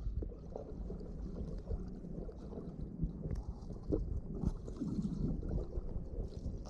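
Water heard by an underwater microphone: a steady, muffled low rumble and gurgling with a few soft knocks scattered through it, as a dog swims along a stony riverbed.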